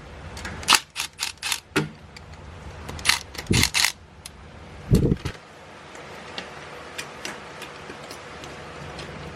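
Sharp metal clicks and clacks in two quick runs, then a dull thump about five seconds in and a few faint ticks, from a transfer case short-throw shifter being loosened and worked by hand. Tightened down, the shifter binds; loosened, it moves.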